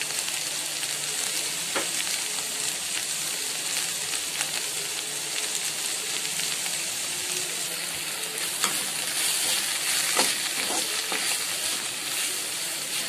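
Greens and grated coconut sizzling in a hot aluminium kadai while a metal spoon stirs them, scraping and now and then knocking against the pan.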